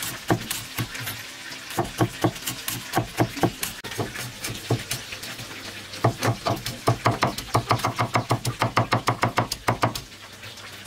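Heavy cleaver chopping a green herb on a thick wooden chopping block, a series of sharp knocks. The strokes are slow and uneven at first, then turn into a fast steady run of about five chops a second, which stops shortly before the end.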